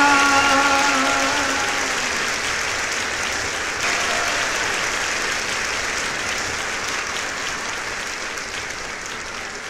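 Applause that gradually fades away. At the start, a man's drawn-out shout into a microphone is held and then stops about two seconds in.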